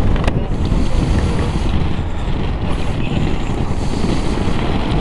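Wind rushing over a motorcycle-mounted microphone, mixed with the steady low sound of motorcycle engines and tyres on the road while riding.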